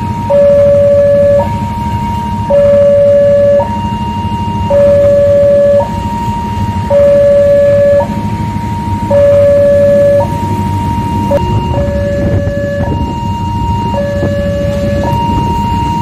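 Railway level-crossing alarm sounding two alternating tones, a lower and a higher one, each held about a second, warning that a train is approaching and the barriers are closing. A steady low rumble runs underneath, and the low tone sounds weaker after about ten seconds.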